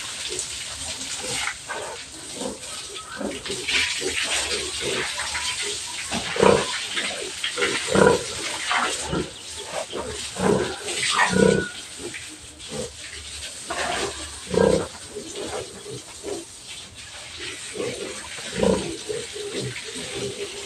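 Pigs grunting over and over in short calls as they are hosed down, over a steady hiss of spraying water.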